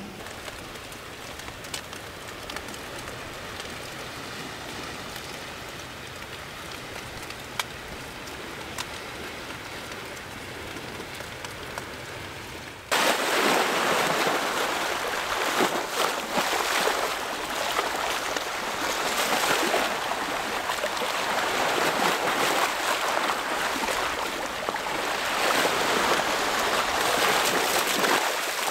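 A quiet steady hiss with a few faint light ticks, then about 13 seconds in, sea waves washing in and splashing over low rocks at the shoreline, a loud surging rush that swells and ebbs.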